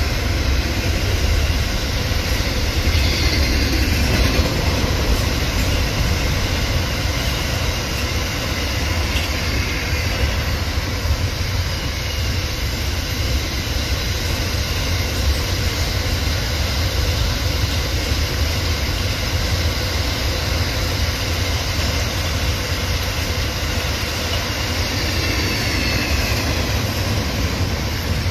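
Container wagons of a freight train rolling across a steel girder bridge: a steady, heavy rumble of wheels on rail, with faint wheel squeal now and then.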